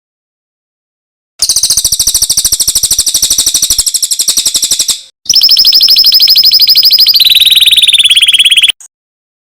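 Songbird song: a high, very fast trill of evenly repeated notes begins after about a second and a half of silence. After a short break a second loud, rapid trill follows, which steps down in pitch partway through and then cuts off abruptly.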